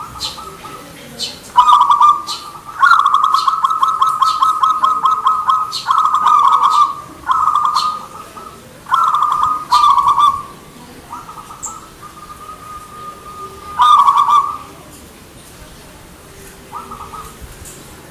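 Zebra dove (perkutut) cooing: a series of rapid trilled coo phrases, with one long rolling trill of about three seconds a few seconds in, followed by shorter phrases separated by pauses.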